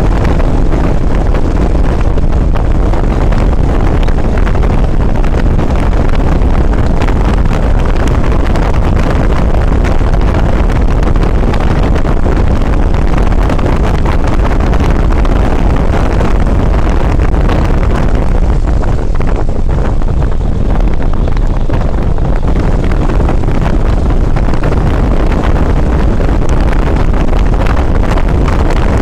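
Wind rushing over the microphone of a moving motorcycle, steady and loud, with the bike's engine running underneath it.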